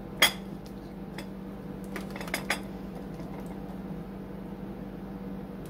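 Metal utensil clinking against a plate while whipped cream is spooned onto a serving: one sharp clink about a quarter second in, then a few lighter clicks around two seconds in, over a steady low hum.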